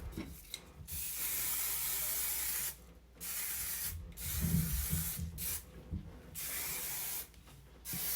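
Aerosol hairspray can spraying in about five hissing bursts, the first about two seconds long and the rest shorter, with a few low handling thumps about halfway through.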